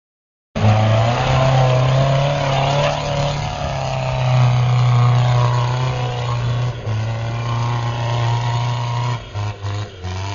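Off-road 4x4's engine running hard at high revs, its pitch stepping up and down, cutting in abruptly and dipping several times in quick succession near the end.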